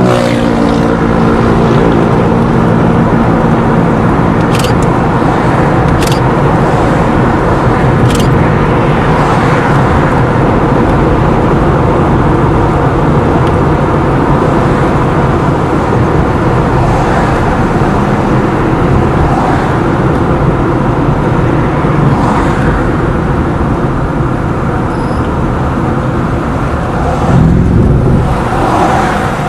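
Steady road and engine noise heard from inside a moving car, with a few sharp clicks about four to eight seconds in.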